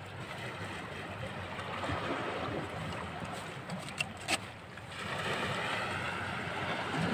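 Sea water washing and splashing among shoreline rocks, growing louder over the last couple of seconds, with a few sharp clicks around the middle.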